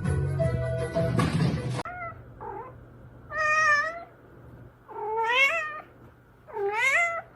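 Music cuts off about two seconds in, then a cat meows: two short calls followed by three long meows, each rising and falling in pitch, about a second and a half apart.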